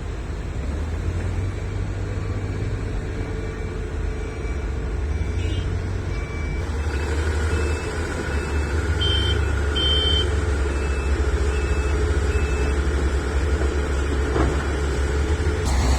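Heavy diesel earthmoving machinery running with a deep, steady engine drone that grows louder about halfway through. A reversing alarm beeps evenly, about three beeps every two seconds, and stops about three-quarters of the way through.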